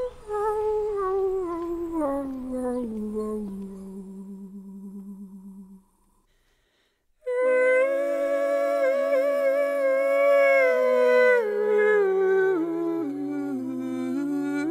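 A voice humming a slow, wordless melody. A long note slides down and fades out over the first few seconds. After a second or so of silence, a fuller hummed tune returns and moves down in slow steps.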